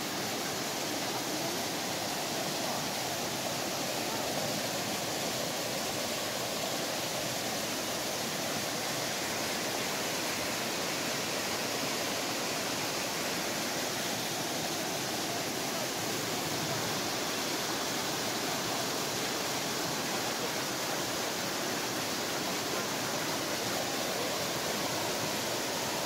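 Mountain stream rushing steadily over rocks and boulders, an even, unbroken water noise.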